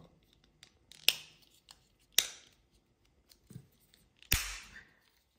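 Sharp plastic clicks of a Lexus smart key fob's cover being snapped back into place: four separate clicks about a second apart, the loudest near the end with a dull knock.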